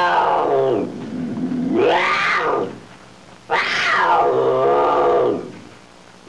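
Monster roars, three in a row, each rising then falling in pitch, with short gaps between them.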